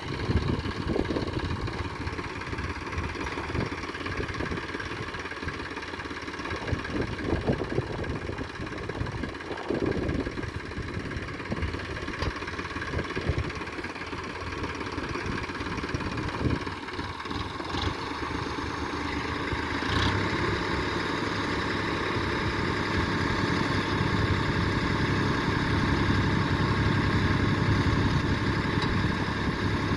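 Machinery engine running steadily, growing louder about two-thirds of the way through.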